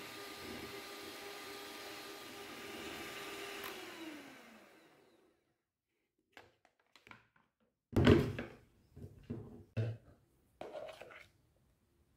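Electric hand mixer running steadily with a motor whine as its beaters whip cream in a plastic bowl; about four seconds in it is switched off and the whine falls in pitch as it winds down. After a short pause come several knocks and bumps, one louder one about eight seconds in, as the mixer is handled.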